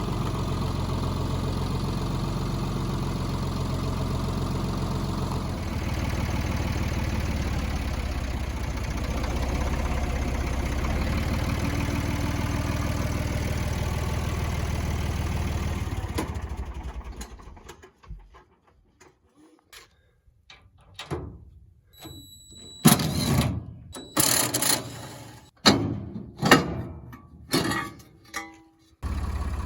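Tractor engine running steadily, then fading away about sixteen seconds in. After a short lull comes a series of loud, sharp knocks and clanks, one with a brief metallic ring.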